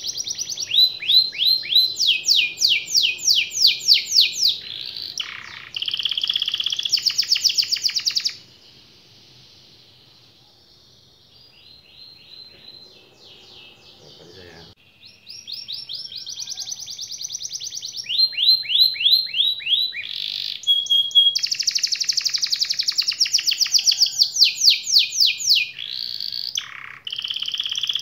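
Yellow domestic canary singing: long rolling trills of rapidly repeated high notes, broken by a lull of about six seconds with only a few soft notes before the fast trills start again.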